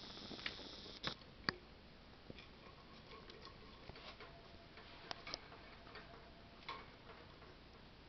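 Scattered faint clicks and taps, about ten of them at irregular intervals, the two sharpest a second apart near the start: a green-cheeked conure's beak and claws on its wooden perch and the wire cage bars.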